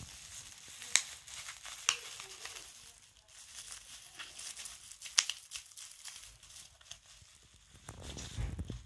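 Plastic bubble wrap crinkling and rustling as a dog paws and noses at it, with a few sharp pops, the loudest about one, two and five seconds in.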